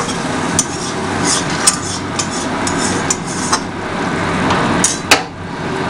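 Metal spatula stirring and scraping brinjal in thick poppy-seed gravy in a metal kadai, over a steady sizzle from the simmering gravy. The spatula knocks sharply on the pan several times, the loudest a little after five seconds in.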